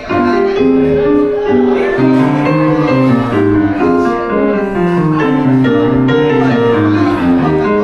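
Background instrumental music: a keyboard-like melody over a stepping bass line.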